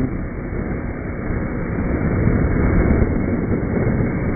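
Kawasaki Ninja motorcycle riding along: engine and road noise mixed with wind buffeting a helmet-mounted microphone, a steady rush that grows a little louder from about two seconds in.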